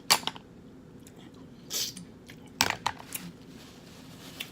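Close-up eating sounds from a seafood boil in sauce: a few short, sharp bites and mouth smacks, with a softer slurp-like sound in between.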